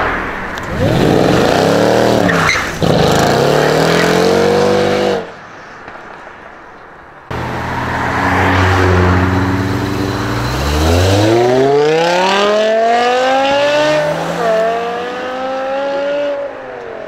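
A Mercedes-Benz CLS revs and pulls away, its engine note rising and falling for about four seconds before it cuts off abruptly. After a short gap a BMW E60 M5's V10 runs steadily, then accelerates hard with a climbing engine note and one upshift about two-thirds of the way through.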